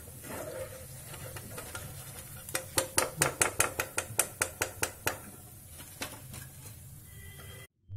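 Metal slotted skimmer clicking against a frying pan in a quick run of light taps, about five or six a second for a couple of seconds, while fried veg Manchurian balls are lifted out of the oil.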